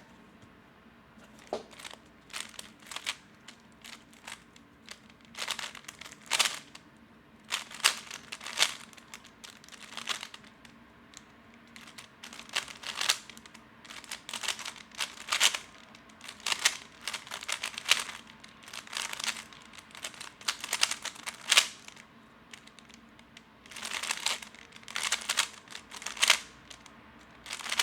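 A lubed, loosened magnetic 3x3 speedcube turned rapidly by hand: runs of quick clicking and clacking as the layers snap round, broken by short pauses. It is a slow, fumbled solve.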